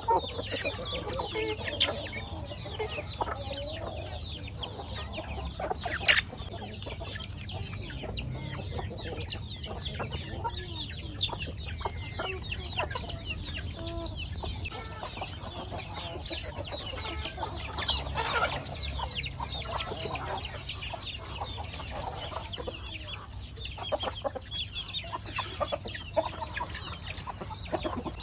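A flock of chickens clucking steadily while they feed, with many short overlapping calls and quick pecking clicks, over a steady low hum.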